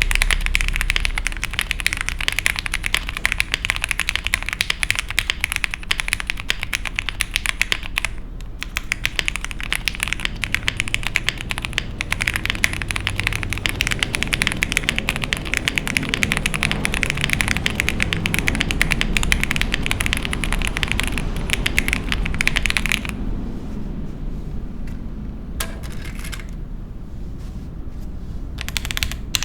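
Fast, continuous typing on a Rita65 gasket-mount mechanical keyboard with lubed Gateron X linear switches, a poly plate and GMK keycaps. The typing thins to a few scattered keystrokes for the last several seconds.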